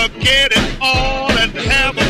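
Upbeat dance music with a steady drum beat, about two hits a second, under a melodic lead line.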